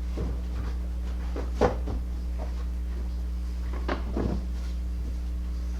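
Sharp knocks and clunks of parts and tools being handled at the engine bay. The loudest knock comes about a second and a half in, and a short cluster of clunks follows near four seconds, all over a steady low hum.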